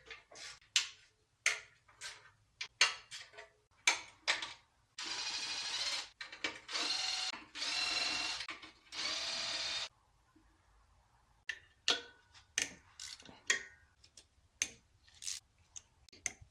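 A cordless power tool runs in four short bursts of about a second each in the middle. Before and after the bursts come scattered metallic clicks and clinks of hand tools and parts being handled.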